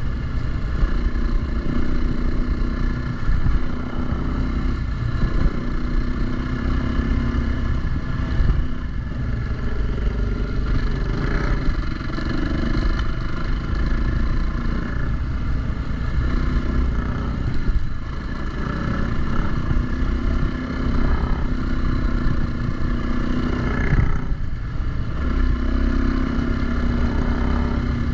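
Dirt bike engine running while riding, its pitch rising and falling with throttle changes and easing off briefly a couple of times.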